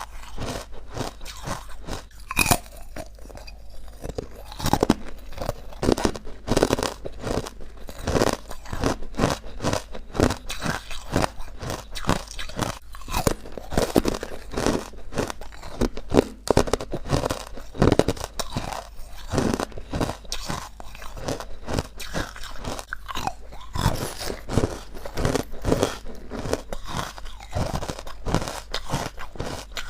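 A person biting and chewing crunchy, chalky white ice bites made from carbonated water: continuous crunching, several crunches a second.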